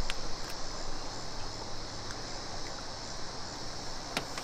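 Steady high-pitched chirring of insects, with two sharp clicks: one just at the start and one near the end.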